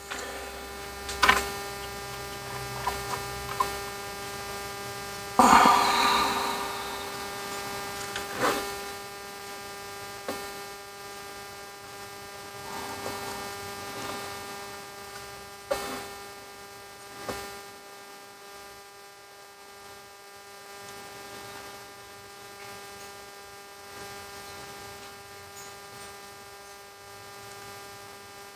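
Steady electrical hum, with a few light knocks and a short rustle in the first half as the plastic-cased ABS module is handled on the wooden bench.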